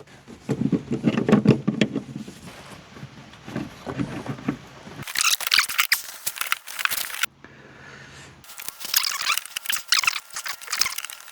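Clicking and scraping of plastic drain plumbing being handled and worked at by hand, in two bursts.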